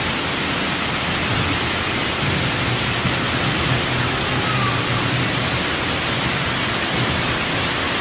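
Water jets and sprays of a water-park splash structure running, a steady rushing hiss of falling water.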